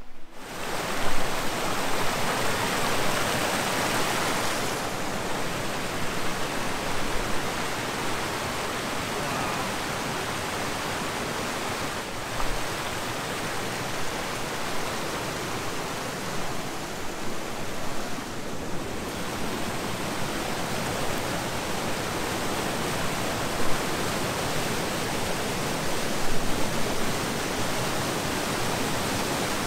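Steady rush of a woodland stream cascading in white water over rock ledges in a small waterfall. The sound shifts a little about five seconds in and again near eighteen seconds.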